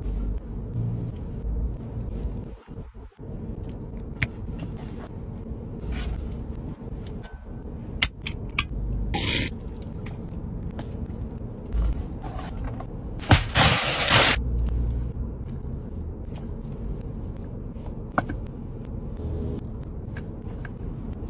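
Fingers scraping and rummaging through rice on a metal serving tray, with short handling noises over a steady low rumble. A loud hissing noise lasts about a second partway through.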